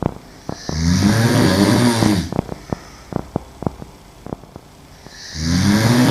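A woman snoring on her back in her sleep: one long, loud, buzzing snore about a second in, and another beginning near the end. Faint clicks sound in the pause between them.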